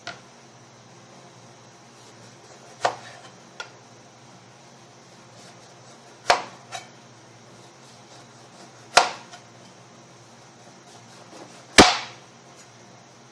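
Chef's knife cutting through eggplant and knocking on a plastic cutting board as each lengthwise slice is finished: a sharp knock about every three seconds, some followed by a lighter tap. The loudest knock comes near the end.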